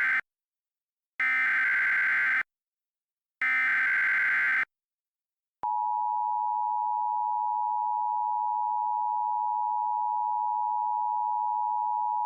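Emergency Alert System SAME header: three identical bursts of warbling digital data tones, about a second each (the first cut off just after the start). About a second after the last burst, the steady two-tone EAS attention signal begins and holds on, shrill and unchanging.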